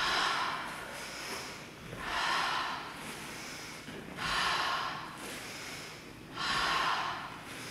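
A person breathing hard in strong, audible breaths: four of them about two seconds apart, each lasting about a second, paced to a Kundalini yoga breathing-and-movement exercise.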